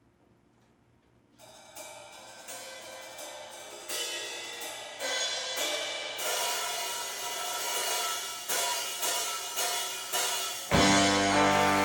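Drum kit cymbals and hi-hat opening a jazz-funk big band tune: after a second and a half of quiet, accented cymbal strikes build into a swelling cymbal wash that grows steadily louder. About a second before the end the full big band comes in together.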